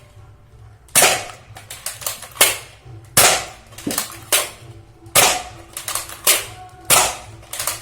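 Nerf Elite Disruptor foam-dart blaster firing repeatedly: a series of sharp spring-plunger pops about a second apart, with fainter clicks between them.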